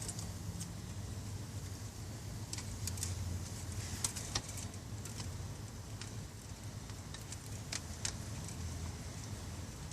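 Scattered small clicks and light rattles from hand work on wiring under a car dashboard, stripping and splicing wires, over a steady low hum. The clicks come in a cluster a few seconds in and again near the end.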